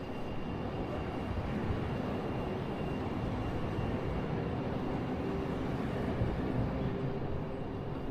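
A vehicle's steady low rumble.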